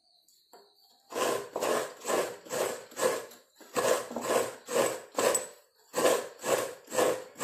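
Coconut flesh being scraped out of a coconut half with a hand-held serrated coconut scraper: a run of rasping strokes, about two a second, starting about a second in, with a short break midway.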